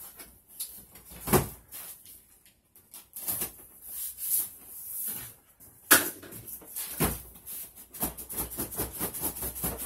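Cardboard retail box being opened and handled: irregular knocks and scrapes, with a sharp thump about a second and a half in and another around six seconds, then a quick run of scratchy cardboard scraping near the end.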